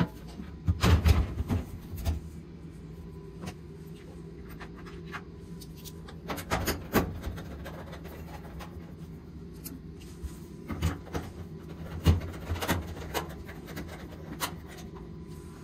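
Scattered knocks and clunks from parts and tools being handled during reassembly of an electric dryer, over a steady low hum. The loudest clunks come about a second in, around the middle, and again a few seconds before the end.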